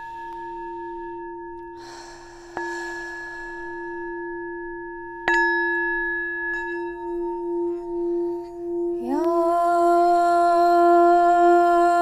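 Tibetan heart chakra singing bowl struck twice with a wooden mallet, each strike adding to a long, steady, ringing tone. About nine seconds in, a louder sustained chanted tone slides up and holds near the bowl's pitch.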